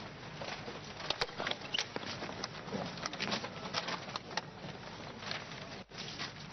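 Scattered small clicks and taps at irregular intervals over a steady background hiss, with a brief dropout about six seconds in.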